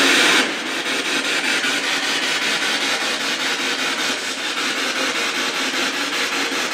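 Spirit box radio scanner sweeping through stations: a loud hiss that changes, about half a second in, into static chopped several times a second as the scan steps from channel to channel.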